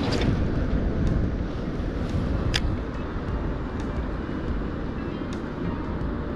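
Wind buffeting the microphone: a steady low rumble, with a few light clicks through it.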